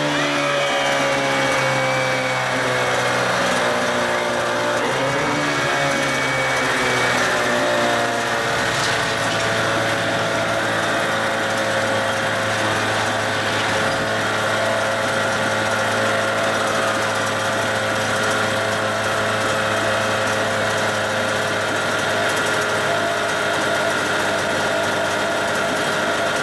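1980 Johnson 15 hp two-stroke twin outboard running on a test run: its revs fall over the first couple of seconds, pick up briefly about five seconds in, then settle to a steady low-speed run.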